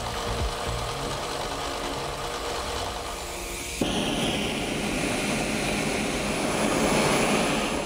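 Steady machine whir as a small steel tool blank is shaped for the first few seconds. Then, about four seconds in, a gas torch flame starts suddenly with a loud, steady rushing hiss, heating the steel form tool to red heat in an insulated enclosure.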